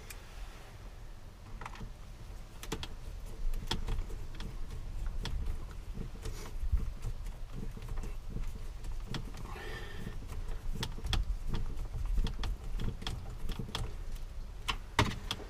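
Irregular small clicks, taps and knocks of hand work with screws and fittings, with a low rumble underneath.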